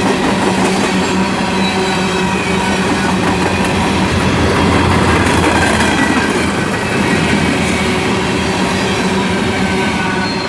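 CSX coal hopper cars of a freight train rolling past, their steel wheels running on the rail in a steady loud rumble with a few steady ringing tones over it, swelling slightly in the middle.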